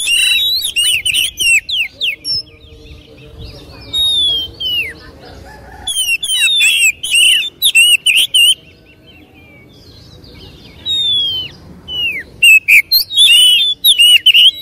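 Male Oriental magpie-robin singing in full, vigorous song: loud bursts of varied whistled phrases with quick sweeping notes and rapid trills, broken by short pauses about two and nine seconds in.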